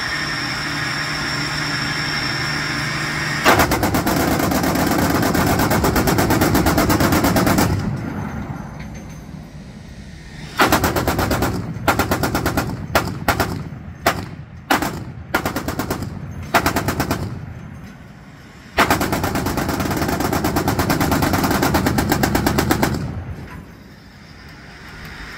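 A Quad 50 mount's four .50-calibre M2 Browning heavy machine guns firing in bursts. After a steady mechanical hum, a long rapid burst of about four seconds starts a few seconds in. It is followed by a string of short bursts, then another long burst of about four seconds that trails off near the end.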